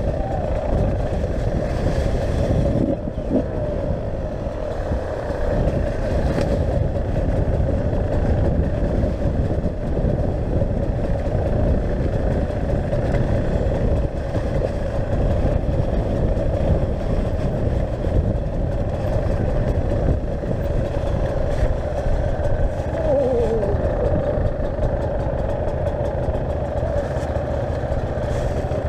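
Enduro motorcycle engine running at steady revs while riding, over heavy low wind rumble. A short falling whine sounds late on.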